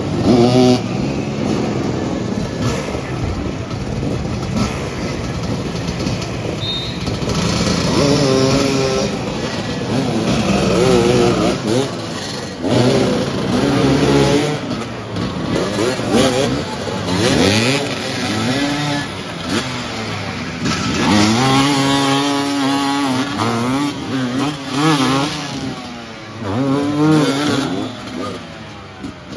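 Several motoball motorcycles revving and accelerating, their engine pitch rising and falling again and again as they move around the ball.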